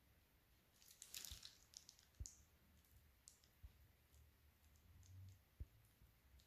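Near silence with a faint, brief rustle of a plastic piping bag being twisted and squeezed about a second in, and a few soft scattered clicks.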